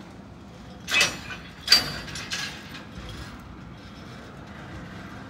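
Slow-moving freight train of covered hopper cars rumbling low, with two sharp metallic clanks about a second in, the second ringing briefly, then a few lighter knocks.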